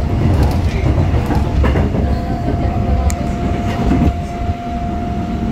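Busan Metro 1000-series first-generation electric train running, heard from inside a passenger car: a steady rumble of wheels on rail with a few light clicks. A steady whine from the IGBT VVVF traction drive sets in about two seconds in.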